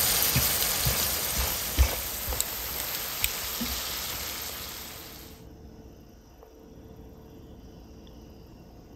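Silkworm pupae and shiitake mushrooms sizzling in a sauté pan of butter, oil and chicken stock, with a few sharp clicks of a spatula against the pan as it stirs. The sizzle fades, then cuts off suddenly a little over five seconds in, leaving only a faint hiss.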